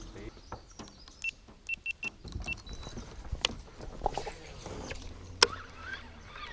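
Baitcasting reel being cranked to retrieve a lure, with scattered clicks and knocks from the rod and tackle being handled and one sharp click near the end.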